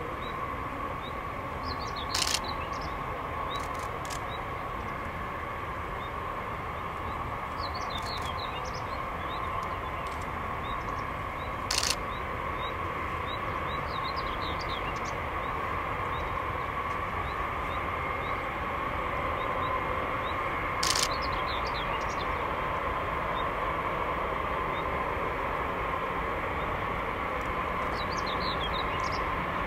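Boeing B-52H Stratofortress's eight Pratt & Whitney TF33 turbofans whining steadily at low power as the bomber rolls out and taxis. The sound grows a little louder in the second half. Birds chirp faintly now and then, and three sharp clicks stand out, about two, twelve and twenty-one seconds in.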